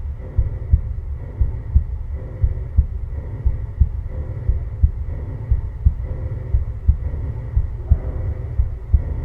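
Heartbeat sound effect: low double thumps, lub-dub, about once a second, over a steady low hum.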